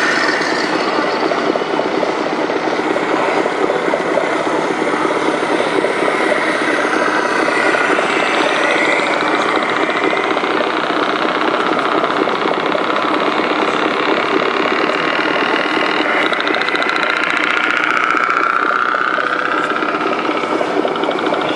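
Radio-controlled model trucks running with a steady engine-like din, with a couple of rising and falling whines as they speed up and slow down.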